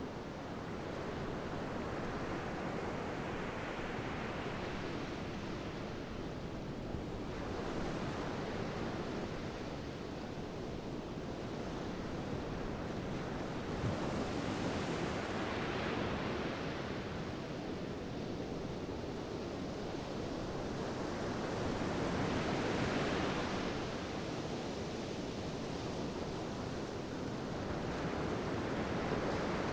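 Big ocean waves breaking on a jetty: continuous surf noise that swells and eases four or so times as sets come in, with some wind on the microphone.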